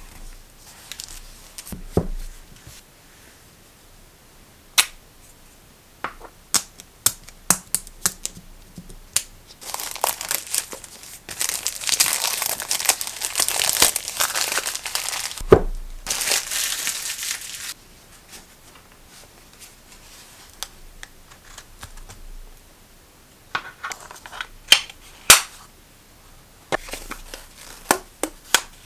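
Clear plastic wrapper crinkling as it is peeled off a hardback sketchbook, a dense run of crackling lasting several seconds in the middle. Around it come scattered sharp taps and clicks of the book being handled.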